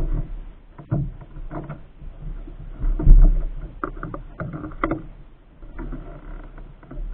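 Double-bladed paddle strokes in a small solo pack canoe: water splashing and dripping off the blades, with several sharp knocks and a heavier thump about three seconds in.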